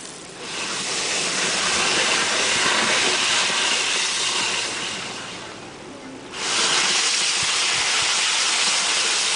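Man-made geyser erupting: a jet of water and spray with a loud, steady rushing hiss. It eases off about five seconds in and surges back sharply after about six seconds.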